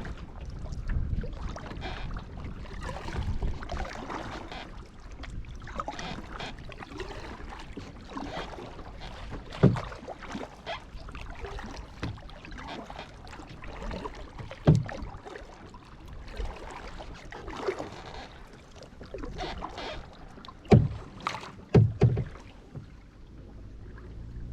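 Kayak paddling: paddle strokes dipping and splashing in the water at an uneven pace, with a few sharp knocks, the loudest about ten, fifteen and twenty-one to twenty-two seconds in.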